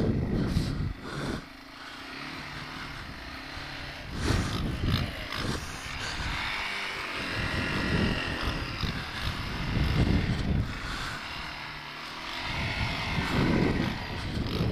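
Single-cylinder four-stroke engine of a 1989 Yamaha Moto 4 250 ATV running under way, its revs rising and falling several times as it is ridden over snow.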